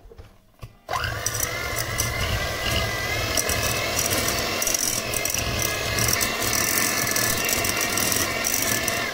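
Moulinex electric hand mixer switched on about a second in, its motor whining steadily as the beaters cream a block of butter in a glass bowl, with a rapid rattle of the beaters against the bowl.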